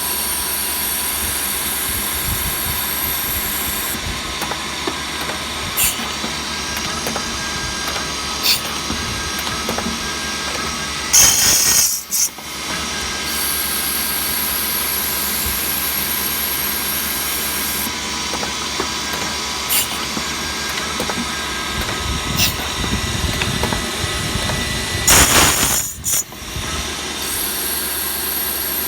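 Drilling machine for copper electrical terminal blocks running steadily with a thin whine, broken twice by a short, louder burst of noise, about eleven seconds in and again near twenty-five seconds.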